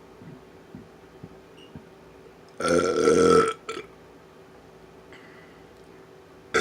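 A person belching: one loud, drawn-out burp of about a second, starting about two and a half seconds in, with a brief tail after it. A second short burp starts right at the end.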